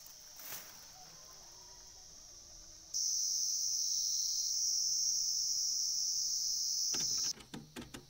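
Steady high-pitched insect drone, faint at first, then loud from about three seconds in before cutting off abruptly about seven seconds in. A few sharp clicks follow near the end.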